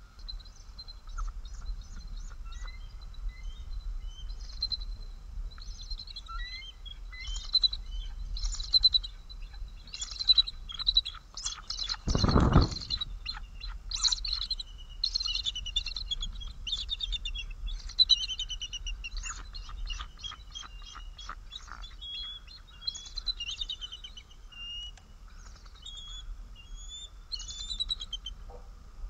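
Bald eagles calling: repeated runs of high, staccato chittering and piping notes through the stretch. One loud, dull thump about twelve seconds in.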